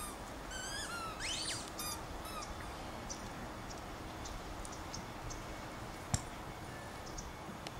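Birds chirping, with a quick rising whistle in the first two seconds, then scattered short high chirps over steady outdoor background noise. One sharp click comes about six seconds in.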